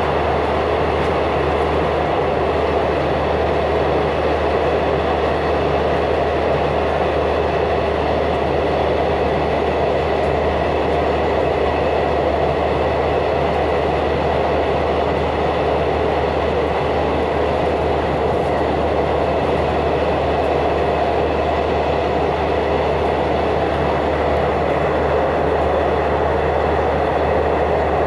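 Steady running noise of a passenger train, heard from inside the carriage: an even, unbroken rumble and rush with a constant low hum underneath.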